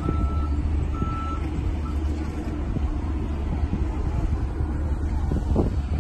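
A heavy vehicle's engine running with its reversing alarm beeping: two beeps about a second apart near the start, then the engine runs on alone.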